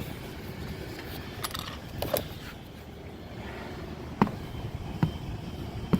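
Construction site background: a steady low rumble with a few sharp knocks, one about two seconds in and three more about a second apart in the second half.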